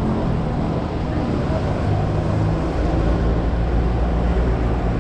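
Street traffic noise, with a vehicle engine running close by as a steady low hum that grows stronger about two seconds in.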